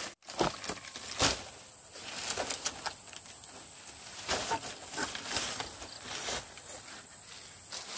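Dry leaf thatch rustling and crackling as hands grip, bend and tuck it over a bamboo roof beam, in irregular crunches, the sharpest about a second in.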